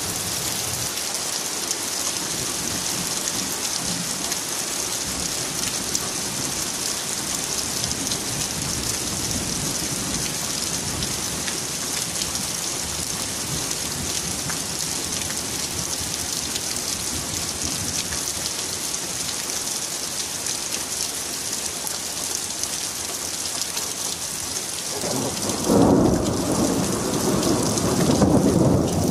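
Heavy rain falling steadily and dripping off a roof edge. About 25 seconds in, a loud rumble of thunder breaks in and goes on to the end.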